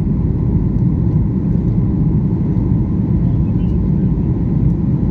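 Steady, even low rumble of a passenger airplane, with a faint steady hum above it.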